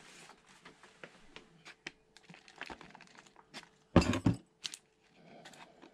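Potting compost and plastic seed cell trays being handled: soft rustling and small clicks as soil is pressed in by hand, with one louder knock about four seconds in.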